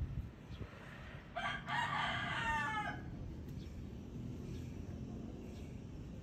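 A rooster crows once, about a second and a half in, for about a second and a half, over a steady low background rumble.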